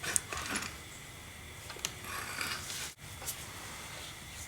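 Hand grease gun pumped twice at the lower kingpin grease fitting of a 1931 Ford Model A, making two short bursts of mechanical clicking about two seconds apart.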